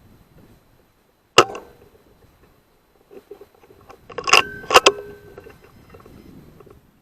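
A shot from a Weihrauch HW100 .22 PCP air rifle, a sharp crack about a second and a half in. It is followed around four to five seconds in by a quick cluster of sharp metallic clanks that ring briefly.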